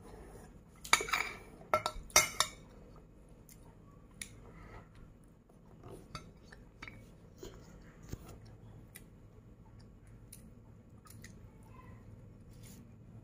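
A metal spoon clinks against a dish several times in quick succession about a second in, followed by quieter chewing of fried rice with small scattered clicks of the spoon.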